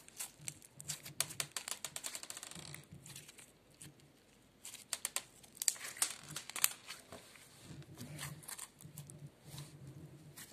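Slime squeezed and kneaded by hand, giving rapid crackling and popping clicks in clusters, with a short pause about three seconds in.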